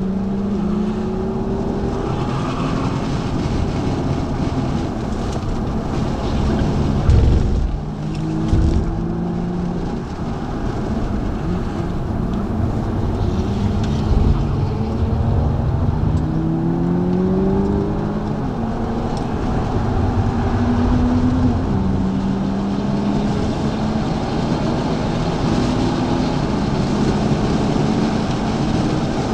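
BMW engine heard from inside the cabin, pulling hard on a race circuit. Its pitch climbs and then drops back at each gear change. Two sharp thumps come about seven and eight and a half seconds in.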